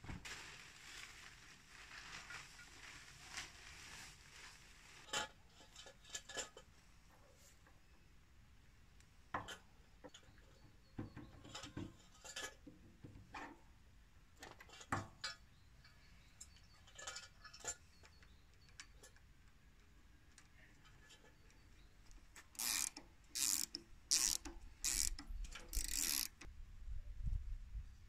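A plastic tarp rustles and crinkles as it is pulled off. Then come scattered metal clicks and taps as a V-belt pulley is fitted to a small petrol engine's shaft, and near the end a run of about six quick ratcheting wrench strokes tightens the pulley's centre bolt.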